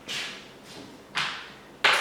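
Three short, sharp scraping noises, each dying away quickly, the last the loudest: hands working on bike parts.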